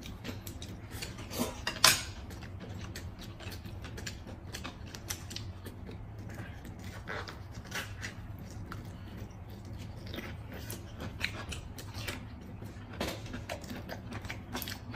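Table eating sounds: scattered light clicks and taps of chopsticks on plates and chewing, with one sharper, louder click about two seconds in. A low steady hum runs underneath.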